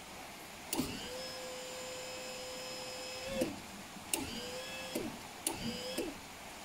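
Electric motor of a hydraulic power unit running in three bursts: a long run of about two and a half seconds, then two short ones under a second each, each starting with a click and a quick rise to a steady hum. This is the unit jogging the waterwheel's lifting arm.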